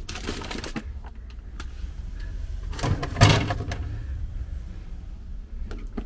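Food packages and a plastic storage box being handled: rustling and knocking, with a louder clatter and thump about three seconds in and a few light clicks near the end.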